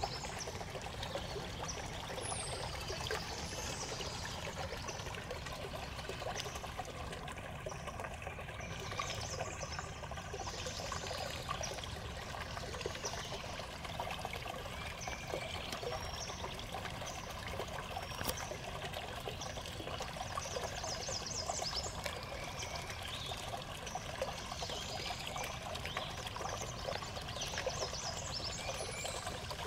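Stream water running steadily.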